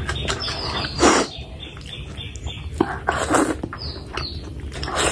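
Close-miked mouth sounds of a person eating curry and rice by hand: wet chewing and lip smacks in irregular bursts, the loudest about a second in and near the end, over a steady low hum.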